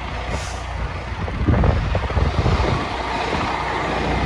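Motor vehicle running with a steady low rumble and rushing noise.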